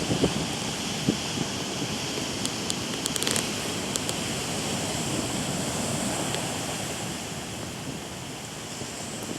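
Atlantic Ocean surf: waves breaking and washing ashore in a steady rushing noise, with a few faint high clicks about three seconds in.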